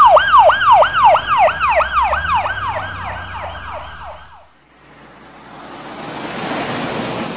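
A police car siren wails in fast up-and-down sweeps, about three a second, fading and then cutting off about four and a half seconds in. A rushing whoosh of a passing car then builds and peaks near the end.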